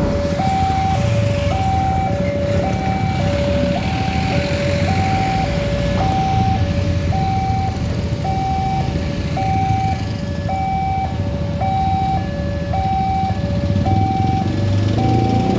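Railway level-crossing warning alarm sounding its electronic two-tone signal, a higher and a lower note alternating about once a second: the warning that a train is approaching. A low rumble of vehicle engines runs underneath.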